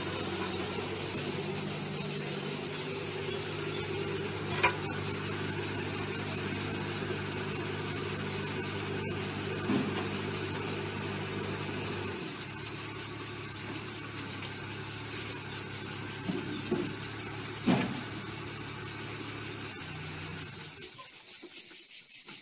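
Caterpillar 301.8 mini excavator's small diesel engine running steadily. It drops in pitch about twelve seconds in and shuts off about twenty seconds in, with a few short clanks along the way. A steady pulsing high buzz of insects runs throughout.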